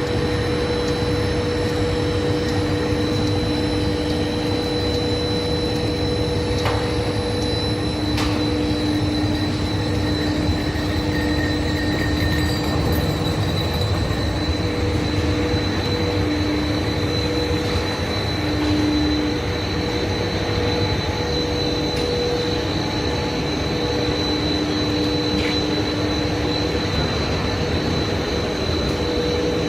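Heavy machinery running steadily: a loud, even rumble with two steady humming tones and a thin high whine over it.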